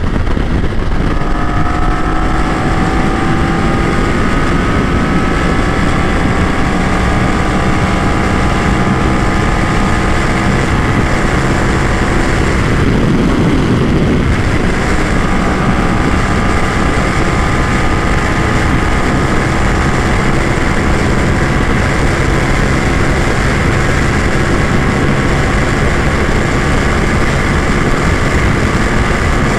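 BMW F 900 XR's parallel-twin engine pulling hard at high revs during a full-throttle top-speed run, its pitch slowly climbing, over heavy wind rush. About halfway through the engine note breaks briefly and picks up slightly lower, then climbs again.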